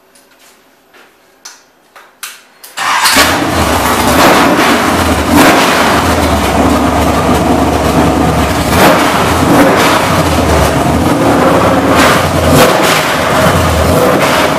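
A few sharp clicks from the test stand's panel switches, then about three seconds in the Chevrolet ZZ6 (CT400) small-block V8 fires up at once and runs loud. The revs rise briefly several times as the throttle is worked at the carburetor.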